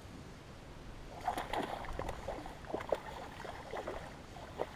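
Water splashing and lapping against a small skiff's hull, with a run of short, irregular splashes and knocks starting about a second in.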